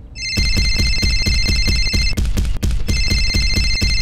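A mobile phone ringtone playing: a high, rapidly pulsing ring over a fast, even beat. The ring drops out for about a second midway, then comes back.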